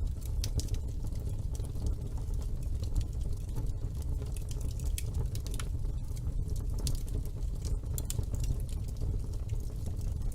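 Wood fire burning in a fireplace: a steady low rumble with frequent, irregular crackles and pops throughout.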